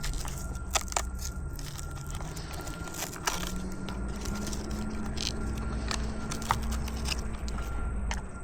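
Handling noise: scattered sharp clicks and scraping over a steady low rumble.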